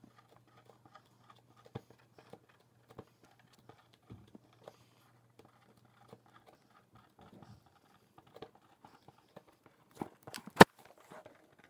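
Faint scattered taps and rustles of markers and paper being handled on a tabletop, with a couple of sharper clicks near the end.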